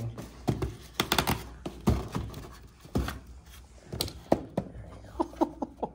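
Hard plastic Tesla Wall Connector housings knocking and clacking as they are handled and set against each other in their cardboard box: a scatter of irregular thunks and clicks.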